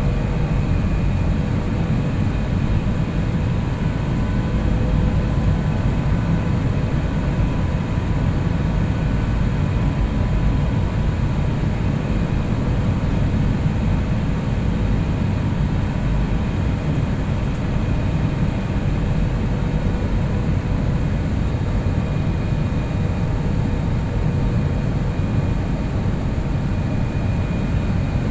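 Jet airliner cabin noise: a steady low rumble with a few faint, steady whining tones above it.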